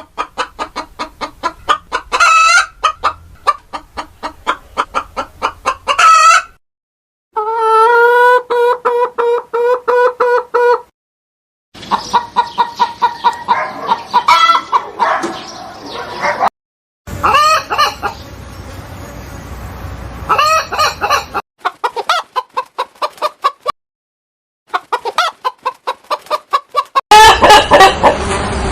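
Chickens clucking in quick repeated runs, with a few drawn-out rooster crows, in several separate sound-effect clips joined with brief silences between them.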